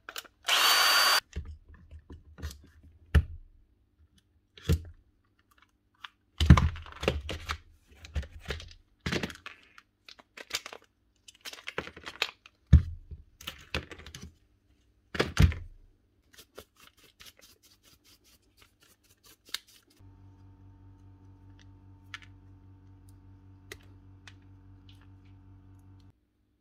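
A burst of about a second from a compressed-air blow gun cleaning out a DeWalt cordless impact driver, followed by scattered clicks and knocks as the driver's housing and parts are taken apart by hand. For the last six seconds or so a steady low machine hum with a faint pulsing runs underneath.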